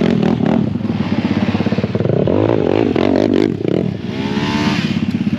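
Off-road vehicle engine running hard with a fast pulsing beat, easing off briefly about three and a half seconds in and then revving up again with rising pitch.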